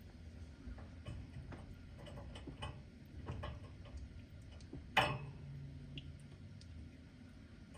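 Light clicks and taps on the racks and dishes inside an open dishwasher, with one sharp metallic clink about five seconds in that rings briefly.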